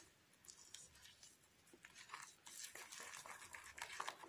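Very faint scraping and ticking of a white plastic stirrer working a thick paste against a small glass bowl. It is almost silent at first and grows into irregular scrapes and ticks from about two seconds in.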